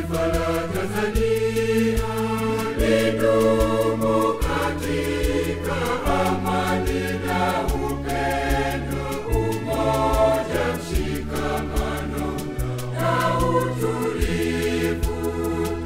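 Mixed choir singing a Swahili church song over a backing track with a steady bass line and a regular beat.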